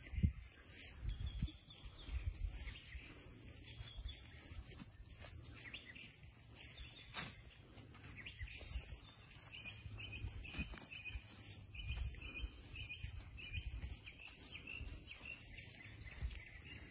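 A small wild bird repeats a short chirp about twice a second, in a run that starts about a third of the way in and lasts to near the end, with fainter calls earlier. Under it are irregular low thumps and rumbles of outdoor ambience.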